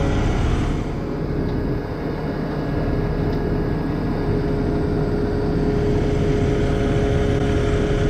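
Heavy diesel truck engine running steadily, with a steady whine over it.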